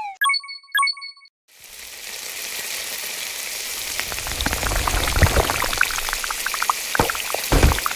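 Two bright chime-like dings about half a second apart. Then a rain-like hiss with scattered crackles builds up, with two low thuds near the end.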